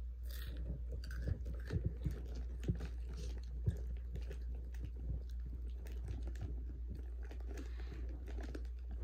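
Takis rolled tortilla chips being chewed, with irregular crunching crackles, while a hand rustles in the foil snack bag. A steady low hum runs underneath.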